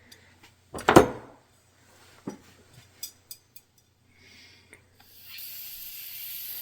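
Small carburetor parts and tools handled on a workbench: one loud knock about a second in, a few light clicks, then a steady hiss from about five seconds in.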